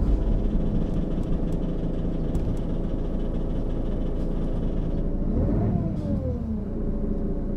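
Diesel engine and ZF automatic gearbox of a Mercedes-Benz O 530 G Citaro articulated bus, heard from inside the bus, running at a steady speed. Near the end the pitch rises briefly and then drops away.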